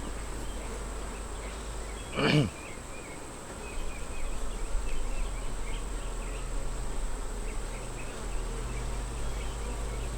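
Honey bees buzzing around an open hive during an inspection, a steady hum. About two seconds in one bee passes close with a loud buzz that drops sharply in pitch.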